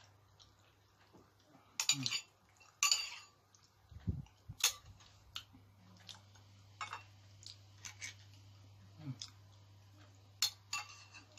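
Metal spoon clinking and scraping against a bowl and bone while eating, in irregular short clicks and scrapes, with a low thump about four seconds in.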